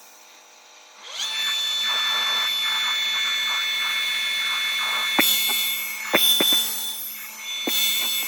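A small electric motor, like a power drill, starts about a second in and runs with a steady high whine. A few sharp clicks come near the end.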